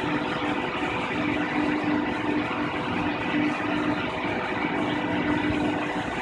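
Metàl·liques Orion ALC 800 industrial container washer running: a steady machine hum over a constant rushing noise, with one low tone in the hum pulsing on and off.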